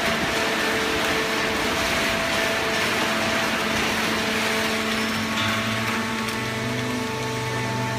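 Hydraulic horizontal baling press running: a steady machine hum and whine over a broad mechanical noise, with a deeper hum coming in about five and a half seconds in.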